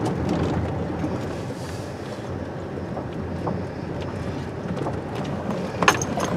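Car cabin noise while driving slowly on a gravel road: a steady low tyre rumble with faint crunches of gravel, and a sharper click near the end.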